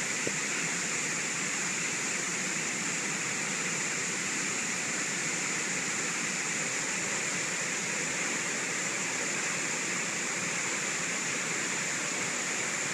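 Steady rushing of a waterfall, an unbroken roar of falling water.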